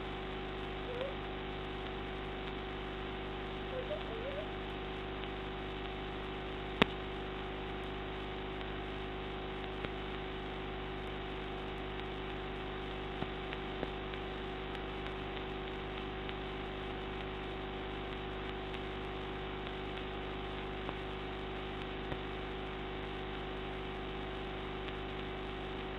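Steady hum and hiss of a quiet room, with one sharp click about seven seconds in and a couple of faint short squeaks near the start; no coughing.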